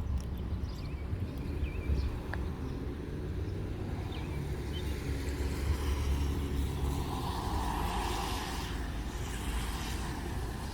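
A steady, low engine rumble from a heavy vehicle.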